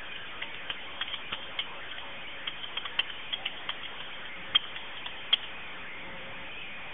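Computer keyboard typing over a telephone line: irregular keystroke clicks, a few a second with two louder strikes past the middle, as the 911 dispatcher types notes into the call record, over steady line hiss.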